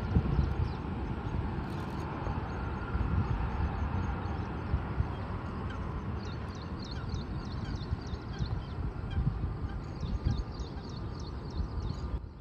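Low, steady rumble of a distant jet airliner landing, mixed with wind on the microphone. From about halfway through, small birds chirp repeatedly in short high notes.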